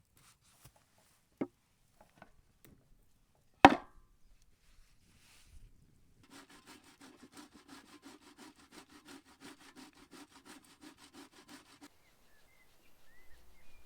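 Two sharp knocks, the second much louder, then a steady run of quick rasping strokes, about seven a second, for around five and a half seconds: a hand-worked kitchen tool scraping rhythmically during the pecorino-and-pepper preparation.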